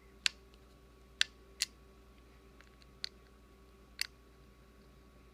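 Five short, sharp, light clicks spread over a few seconds as a small screwdriver works the tiny screws on an iPhone 5S's internal cover plate.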